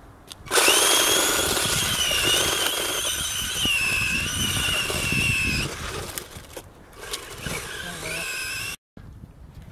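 Radio-controlled truggy pulling away hard, its motor and gears giving a high whine that wavers in pitch, starting suddenly about half a second in. The whine drops in loudness after about six seconds as the truck drives off, carries on fainter, then cuts off abruptly near the end.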